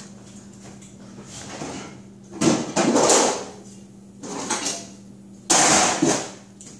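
A metal baking pan being got out of a kitchen drawer, with sliding, scraping and rattling in four stretches, the loudest about two and a half and five and a half seconds in. A steady low hum runs underneath.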